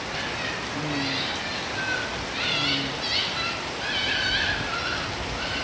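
Steady rain falling on leaves, grass and ground. Over it a bird chirps a few times about halfway through, and there are two short low hoots.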